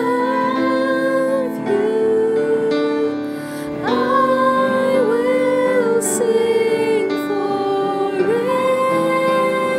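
Worship song: a woman's voice singing long held notes over sustained instrumental accompaniment.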